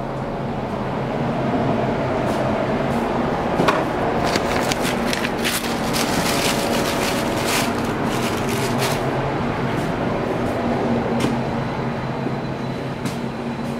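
Steady mechanical hum of a ship's ventilation and machinery, with several low held tones. A run of clicks and clatter starts about a third of the way in and lasts several seconds.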